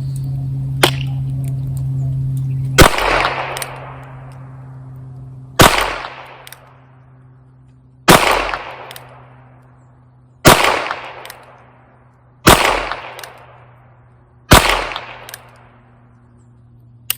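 Six shots from a Ruger Wrangler Birdshead .22 LR single-action revolver firing CCI standard-velocity round-nose ammunition, spaced about two to three seconds apart, each with a short echoing tail.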